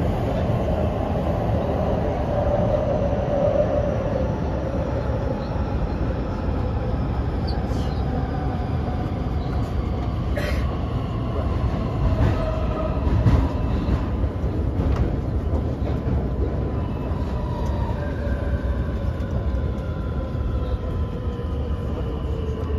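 Cabin noise of a Beijing Subway Line 15 DKZ31 metro train under way: a steady low rumble of wheels on rail, with the traction motors' whine gliding slowly down in pitch as the train slows for the next station. A few sharp clicks sound in the middle.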